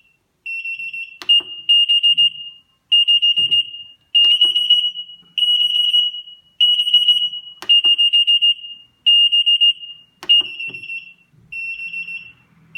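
Multi-channel kitchen timer's alarm going off, a high-pitched beep repeating about once a second in roughly one-second bursts with short gaps: the countdown has run out. A few clicks sound over the beeping.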